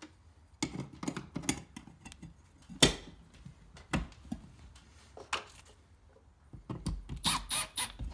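Metal clinks and taps as a blank steel cover plate is handled and fitted onto a metal junction box: scattered sharp clicks, the sharpest about three seconds in, and a quick cluster of ringing metallic clinks near the end.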